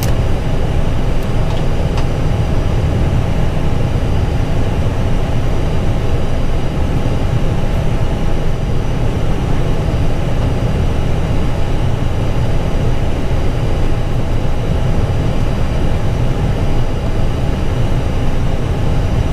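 Steady noise inside an Airbus A320 cockpit on the ground with the engines at idle: a constant low rumble with a few steady hums above it, unchanging throughout.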